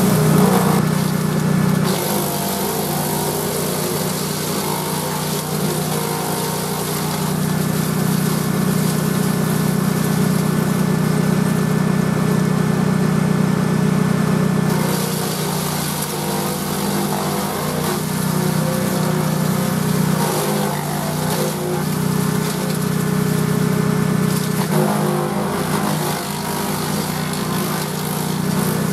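Grillo G131 walk-behind tractor's 18 HP Vanguard V-twin engine running steadily at speed under load, driving a Caravaggi BIO 150 chipper shredder. Bursts of chipping noise rise over the engine near the start and again about 25 seconds in as branches are fed through, and the engine holds its speed without bogging down.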